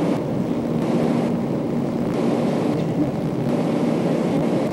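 Boat engine running at a steady drone, with a faint even hum.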